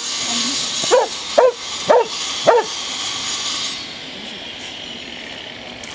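A dog barking four times in quick succession, about half a second apart; each bark is short and sharp, rising and then falling in pitch.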